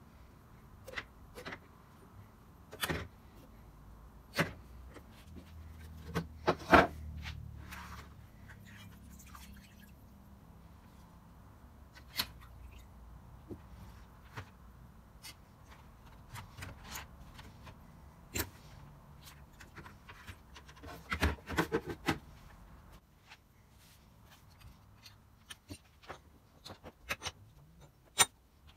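Scattered clicks, knocks and light clatter of hands handling small metal plane parts, a plastic parts basket and a metal rust-remover bucket. There is a loud cluster of knocks about seven seconds in and another around twenty-one seconds.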